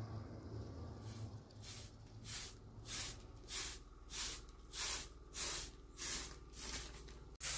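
Short straw hand broom sweeping a dusty yard floor, in brisk, regular swishing strokes about one and a half a second, starting about a second in.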